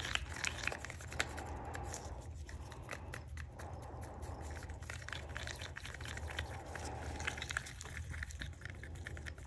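A stir stick scraping and tapping around the inside of a small cup while epoxy resin is mixed with pink pigment: many small irregular ticks and scrapes over a steady low hum.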